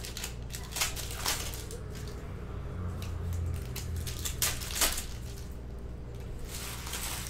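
Panini Mosaic basketball card pack wrappers being crinkled and torn open by hand, with the cards being handled. There are several sharp rustles, the loudest about a second in and again past four seconds, over a steady low electrical hum.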